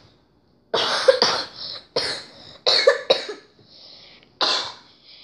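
A boy coughing repeatedly: six harsh coughs, mostly in pairs, with short pauses between them.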